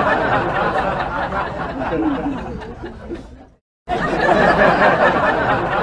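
Many voices chattering and laughing together, like a crowd or laugh track. It fades out about three and a half seconds in, stops completely for a moment, then starts again.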